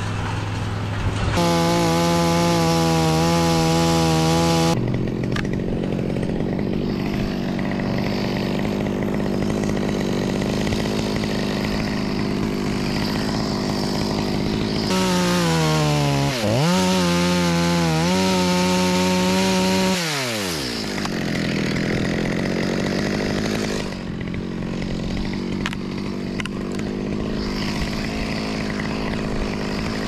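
Chainsaw cutting the eucalyptus stem: it runs steadily, with two louder spells at full revs, one about a second in and another around fifteen seconds. In the second spell the pitch falls and rises again before dropping back to a steady lower note at about twenty seconds.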